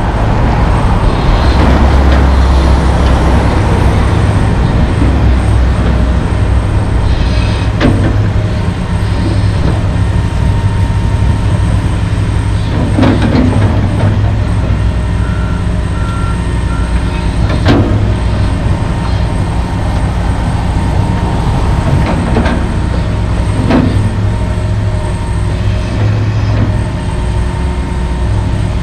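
John Deere 470G track excavator's diesel engine running steadily under load while the bucket scrapes soil, with several sharp clanks of the bucket and machine as it digs.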